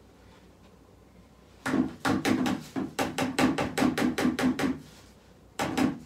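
Rapid knocking, about four hard knocks a second for around three seconds, then a short second burst of knocks near the end.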